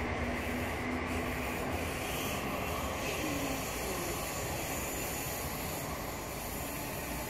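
Electric multiple-unit passenger train pulling away, its running noise on the rails slowly fading as it recedes. A low hum from it dies away in the first second or so.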